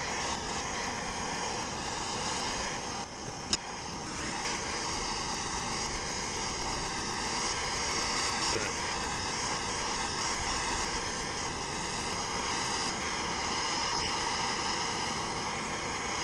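Handheld gas torch burning steadily with a continuous roaring hiss as its flame heats a bronze propeller hub that is under a prop puller's pressure, to expand the hub off the shaft taper. A single sharp click about three and a half seconds in.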